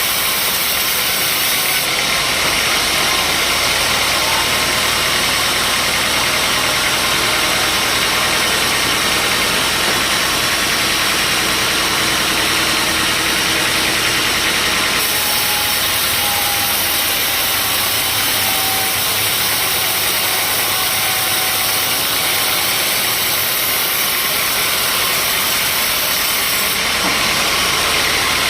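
Sawmill machinery running steadily: an engine hum under a loud, even hiss. The sound shifts abruptly about two seconds in, about halfway through and near the end.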